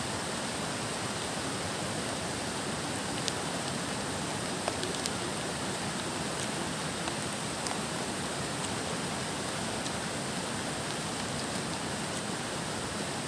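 A steady rushing noise like running water, with a few faint clicks and taps over it.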